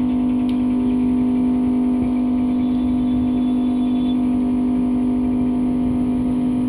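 LCD separator machine's vacuum pump running with a steady, even hum, its suction switched on to hold the phone down on the heated plate.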